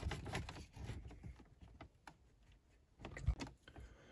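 A BMW CD43 car radio head unit being pushed into its dashboard opening: faint plastic scraping and small clicks, then a short cluster of knocks about three seconds in as it goes fully home.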